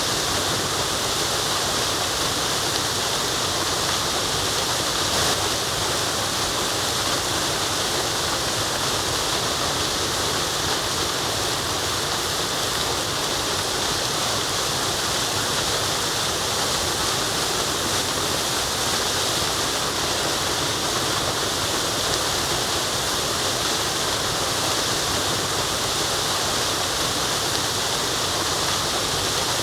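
Waterfall: a steady rush of falling water, even and unbroken, with most of its energy in the hiss.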